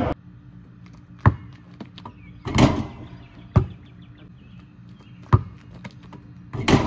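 A basketball bouncing on an asphalt driveway: about five single sharp hits, unevenly spaced a second or more apart, two of them longer and harsher than the rest.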